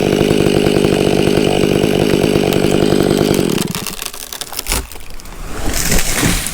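Stihl 500i two-stroke chainsaw running at full throttle through the back cut of a tree felling, then cutting out about three and a half seconds in. Scattered cracks follow, and then a loud crash near the end as the tree goes over.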